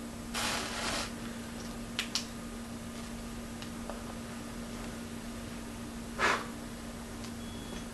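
A match head flaring up with a short hiss as a focused 650 nm red laser beam ignites it, then a couple of light clicks about two seconds in and another brief rush of noise about six seconds in, over a steady low hum.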